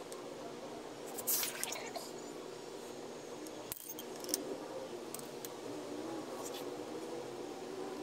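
Light metallic clicks and scrapes of a T-handle hex key turning the front brake caliper bolts, a short cluster about a second in and single ticks after, over a faint steady hum.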